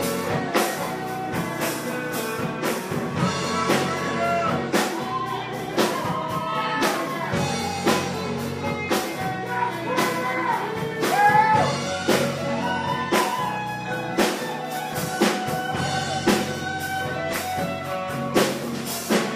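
Live rock band playing: an electric guitar plays a lead line with bending notes over drums and bass.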